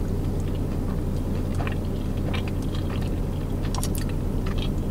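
A person chewing a mouthful of crunchy California roll sushi close to the microphone, with soft, irregular crunches and mouth clicks. A steady low hum runs underneath.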